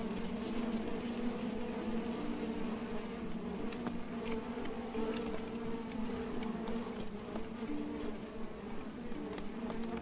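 Honeybees buzzing in large numbers around an opened top bar hive with a colony of tens of thousands: a steady drone of several overlapping pitches that shift in and out.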